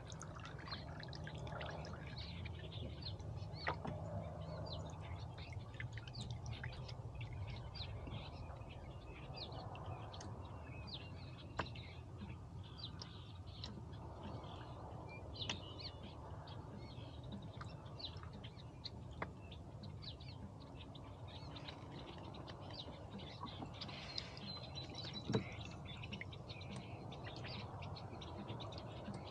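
Birds chirping: many short, high calls, scattered irregularly, over a steady low background rumble, with an occasional faint click.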